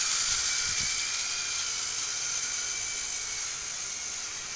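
Battery-powered toy train motors whirring steadily as the trains run along plastic track, the whir slowly getting quieter.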